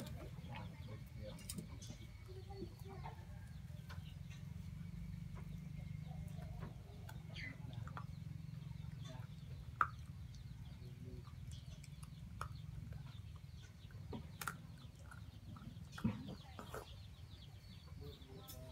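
Faint chicken clucking over a low steady rumble, with scattered light clicks and taps. Two sharper knocks stand out, about ten seconds in and again near sixteen seconds.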